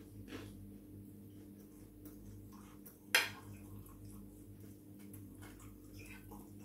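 Metal fork clinking and scraping on a plate of pasta, with one sharp clink a little after the halfway point, amid soft chewing, over a steady low hum.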